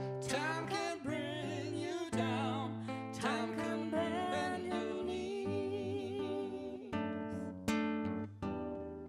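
Live acoustic guitar strumming chords while a voice sings long, wavering notes over it; near the end the vocal drops out and the strummed chords stand out again.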